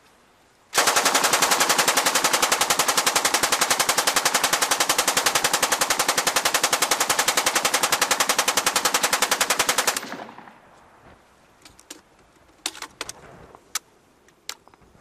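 Stoner 86 (ARES LMG-1) 5.56 mm belt-fed light machine gun firing one long, unbroken automatic burst of about nine seconds at an even cyclic rate. A few single sharp clicks follow near the end.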